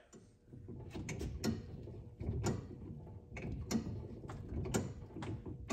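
Steering linkage of a 1973 Plymouth Duster knocking and clicking as the steering is turned back and forth, in repeated irregular knocks one or two a second over a low rumble. The play comes from the idler arm joint, which has a lot of slop: a worn-out idler arm.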